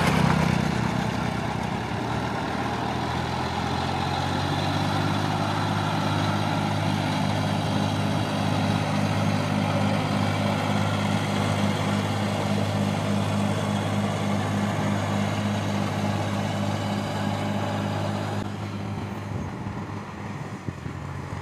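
Diesel tractor engine running steadily under load while puddling a flooded paddy field, a low droning hum with a fast, even pulse. The sound thins out a little near the end.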